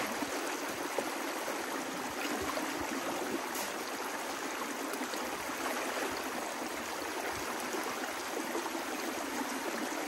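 Creek water flowing steadily through a narrow, fast-moving stretch, with no breaks or changes.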